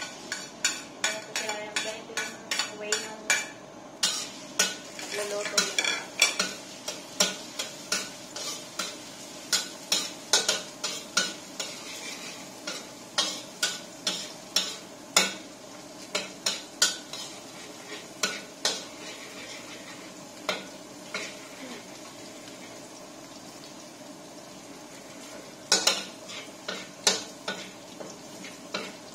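Metal spatula scraping and knocking against a steel wok in quick, uneven strokes, with a pause near two-thirds of the way through. Minced garlic sizzles in the hot wok, the hiss starting about four seconds in.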